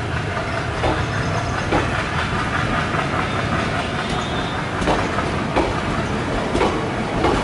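Indian Railways passenger coaches rolling past, their wheels clacking over rail joints every second or so above a steady low rumble.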